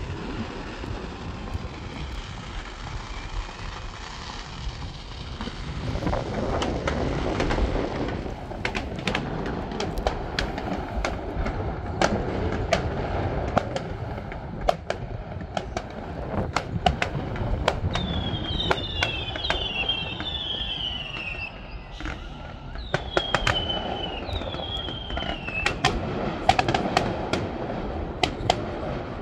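Fireworks display going off: a series of sharp bangs and crackles over a steady low rumble, growing busier a few seconds in.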